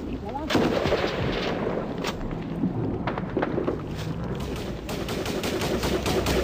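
Small-arms gunfire, rifle and machine-gun shots. Scattered shots come first, then a fast run of shots from about five seconds in.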